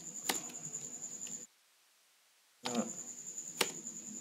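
A few computer keyboard key clicks over a faint hiss with a thin, steady high whine. The background drops to dead silence for about a second midway.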